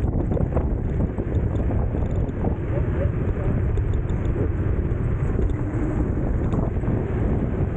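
Steady wind rumble on the microphone of a moving electric scooter, mixed with tyre and road noise, with no engine note.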